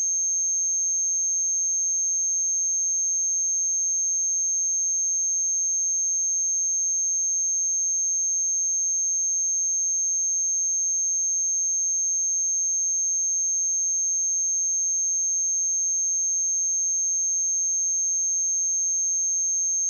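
A pure 6388 Hz sine-wave test tone: one steady, high-pitched whistle held at an unchanging level, with no other sound.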